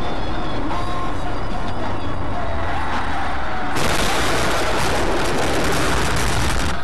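Vehicle running on the road: a steady low rumble of engine and tyre noise. About four seconds in, a harsh hiss suddenly comes in on top and lasts about three seconds.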